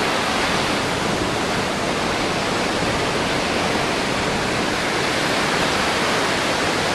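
Sea surf breaking and washing up a sandy beach, a steady, even rush of waves.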